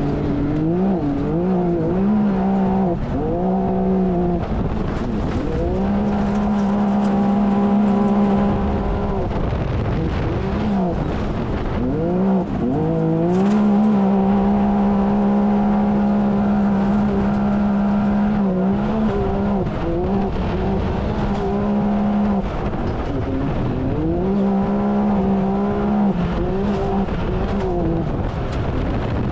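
Can-Am Maverick X3's turbocharged three-cylinder engine at race pace, heard from inside the cab. The engine note holds a steady pitch for several seconds at a time, then dips and climbs again, over and over through the lap.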